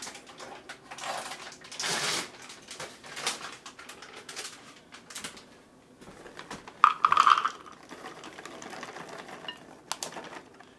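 Kitchen clatter as pecans and walnuts are tipped from measuring cups into a mixing bowl: light rattling and scattered clicks, with one louder, short ringing clink about seven seconds in.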